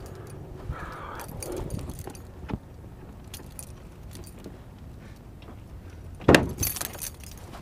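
Small jingling clicks, then a sharp clunk about six seconds in with a short rattle after it: the hood release of a 1996 Mercury Grand Marquis being pulled and the hood latch popping.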